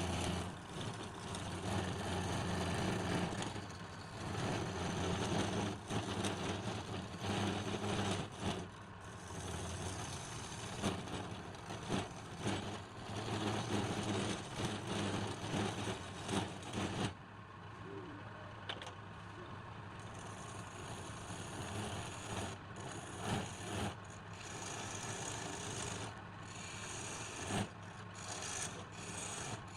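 Wood lathe running with a steady low hum while the spinning wood is scraped and rubbed. Just past halfway the scraping thins out and the hum goes on more quietly, with scattered scrapes.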